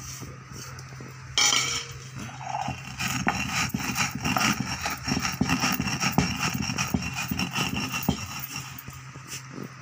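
Stone roller grinding new paddy, rice and sugar on a flat stone slab (sil-batta): a rapid, uneven scraping and knocking of stone on stone. A brief loud rush of noise comes about a second and a half in.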